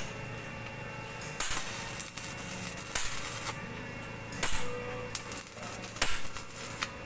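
Metal being struck four times, about once every second and a half, each strike a sharp clang with a brief high ring, over a steady low hum.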